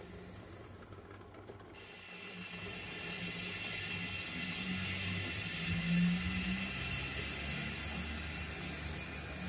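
0 gauge model coal wagons rolling over the track behind a shunting model tank engine: a mechanical clicking and clatter of wheels over the rail, with a low hum from the locomotive's motor and gears, getting louder from about two seconds in.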